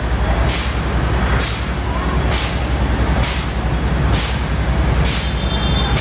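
Fire engine's diesel engine running hard to drive its water pump, a steady low rumble, with a short sharp hiss repeating about once a second.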